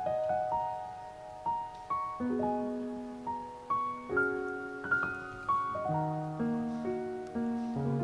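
Background music: a slow, gentle piano piece of single notes and chords that ring and fade.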